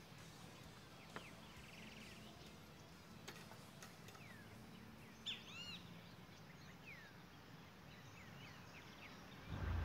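Faint birds chirping and calling now and then over quiet outdoor background noise. Near the end a much louder low-pitched sound comes in.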